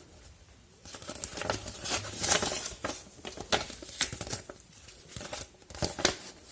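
Paper being handled: irregular crinkling and rustling with small clicks and taps, as of a user manual being picked up and leafed through.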